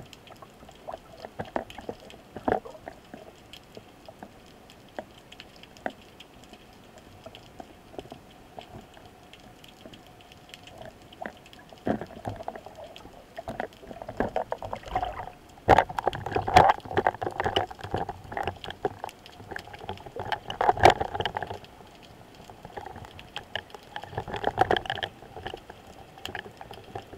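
Underwater sound picked up through a diving camera's housing: scattered clicks and crackles in the water. About sixteen seconds in comes a single sharp crack as the rubber-band speargun fires, followed by louder bursts of churning, crackling and knocking while the speared fish struggles.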